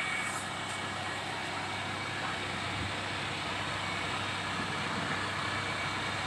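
A car engine idling steadily, a constant low hum under workshop noise.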